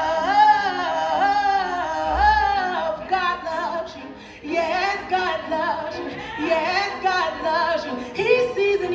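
A woman singing gospel into a microphone over a backing track, with long wavering notes and vocal runs. A low bass note sounds about two seconds in, and the singing briefly drops away around four seconds in before picking up again.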